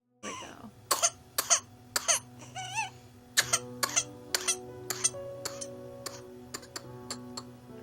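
A whooping-cough fit: quick runs of harsh coughs one after another, broken about two and a half seconds in by a high, wavering whoop, over background music with steady held tones. The coughs thin out to fainter ones after about five seconds.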